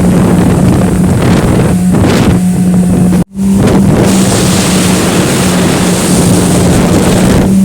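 Speedboat's big Suzuki outboard engine running flat out with a steady drone, under heavy wind buffeting on the microphone and the rush of water past the hull. The sound cuts out for an instant a little over three seconds in, and the high hiss of wind and spray grows stronger after it.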